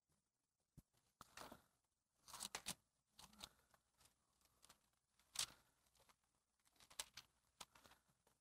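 Bible pages being leafed through: faint, short paper rustles and crackles scattered over near silence, the loudest about five seconds in.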